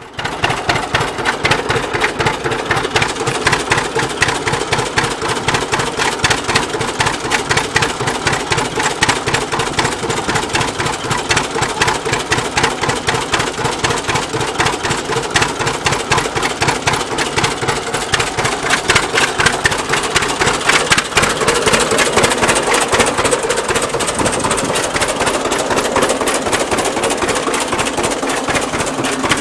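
Rumely OilPull tractor engine running at a steady, fast, even beat, with a constant hum from the belted machinery.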